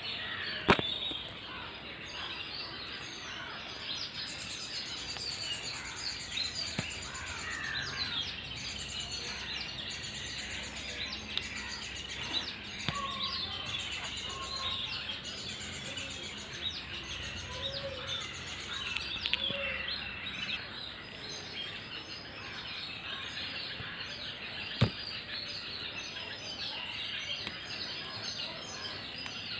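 Many small birds chirping and calling over one another, a busy layer of short high chirps and whistles, with faint steady background noise. Two sharp clicks stand out, one just under a second in and one later on.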